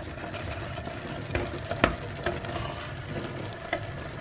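Wooden spatula stirring tomato masala in a pressure cooker, knocking sharply against the pot several times, over a steady sizzle of the masala cooking in oil.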